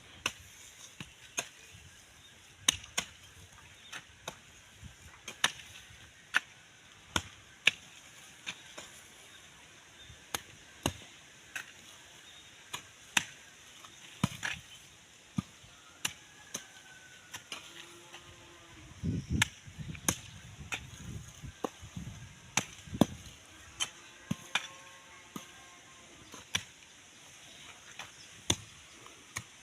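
A garden hoe chopping into soil again and again while ground is dug and weeded, in sharp, irregular strikes about once a second.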